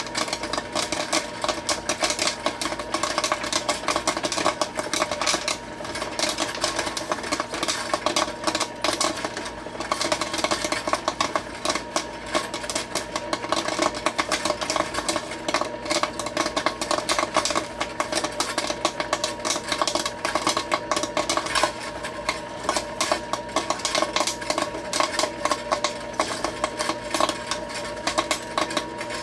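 Popcorn popping rapidly in the hot-oil kettle of a Nostalgia Coca-Cola kettle popcorn maker: a dense, unbroken run of pops over a steady hum from the machine's stirring motor.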